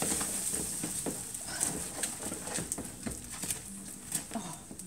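A ladle stirring thickening ice-cream mix in a steel bowl, with irregular knocks and scrapes against the bowl, two or three a second, as the mix freezes with liquid nitrogen. A faint hiss of boiling nitrogen dies away over the first part.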